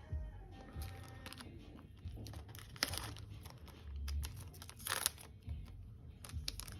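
Trading cards being handled and flicked through, a run of short rustles and crinkles, loudest about three and five seconds in.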